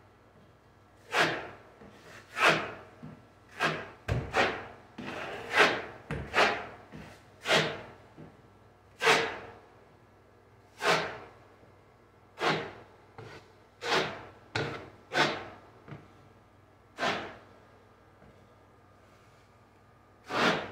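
Drywall knife scraping joint compound across a drywall wall in short, quick swipes, some two dozen strokes at uneven intervals, with a pause of about three seconds near the end.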